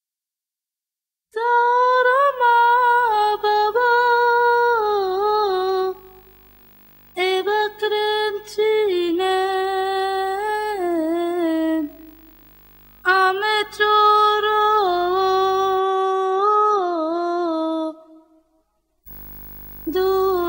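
A single high voice humming a slow, wordless melody without accompaniment, in three phrases with short breaths between them and a fourth beginning near the end.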